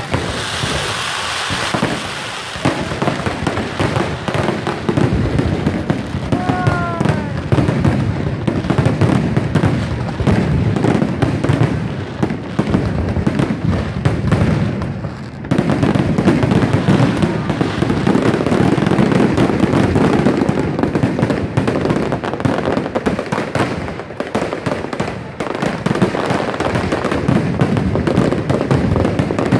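Aerial fireworks display: a dense, continuous barrage of bursts and crackling shells, easing off briefly about halfway through and then going on fuller.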